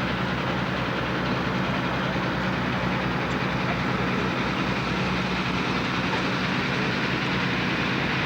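Steady street traffic noise, with an engine or motor running evenly under a low, regular pulsing hum.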